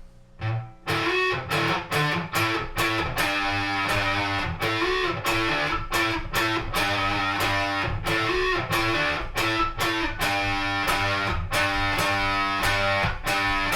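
Electric guitar on its neck pickup played through a one-knob fuzz pedal into two clean amps, a run of fuzzed chords and riffs with sharp attacks that begins about a second in.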